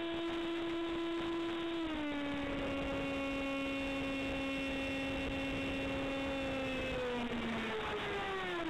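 Electric motor and propeller of an F-27Q Stryker RC flying wing whining in flight, heard through its onboard camera over steady air rush. The whine holds one pitch, drops a step about two seconds in, then slides lower near the end as the motor slows.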